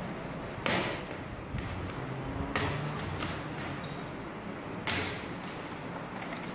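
A padded paper mailing envelope being torn open and a cardboard box pulled out and handled: rustling with several short tearing and scraping noises, the loudest about a second in and again about five seconds in.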